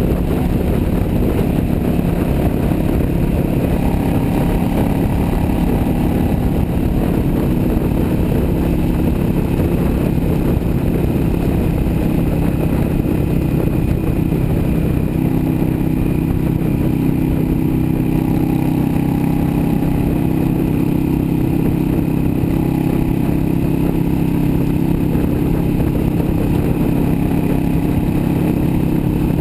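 Yamaha V Star 650 Custom's V-twin engine running steadily at highway cruising speed, heard close up from the handlebars, with wind and road noise over it.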